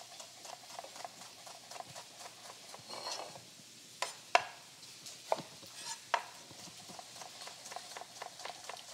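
Chef's knife cutting a red bell pepper on a wooden cutting board: irregular knocks of the blade on the board, with a few louder ones about four to six seconds in.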